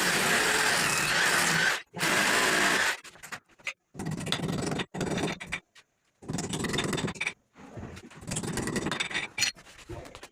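Power tools working on wood, cut together from short clips: one tool runs loudly and steadily for about three seconds, with a brief break near two seconds in. After that come shorter bursts of tool and scraping noise, each cut off abruptly.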